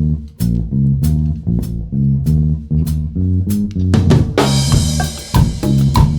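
Background music: a band-style track with a steady drum-kit beat over a bass line, a cymbal crash about four seconds in.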